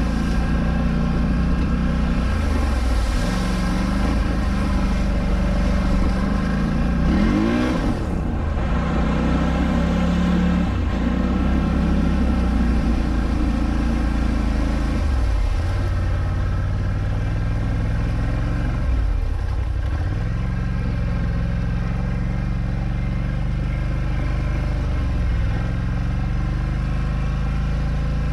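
Polaris Scrambler 1000 quad's twin-cylinder engine running under throttle as it drives through deep water, with water splashing off the front. The engine pitch rises and falls with the throttle, with a quick rev about seven seconds in.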